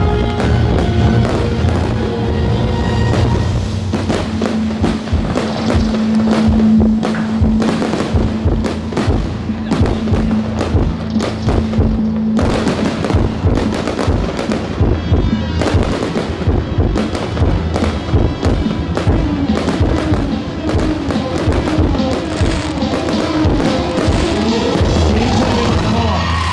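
Aerial firework shells bursting and crackling over loud music, with a rising sweep in the music near the end.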